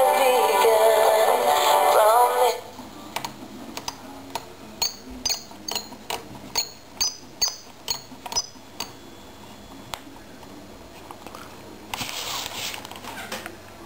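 Tesla Dolly 3 transistor radio playing music with singing through its small speaker, which cuts off after about two and a half seconds. Then a run of sharp clicks with short high chirps as its controls are worked and it is tuned, and near the end a burst of hiss lasting about a second and a half.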